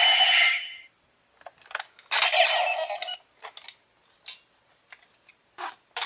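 The tail of a Power Rangers Megaforce Gosei Morpher toy's electronic sound from its small speaker, cutting off within the first second, then scattered plastic clicks and a short burst of sound about two seconds in as the toy and card are handled.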